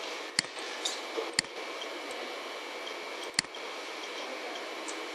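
Three sharp computer mouse clicks over a steady hiss, the first two a second apart and the third two seconds later.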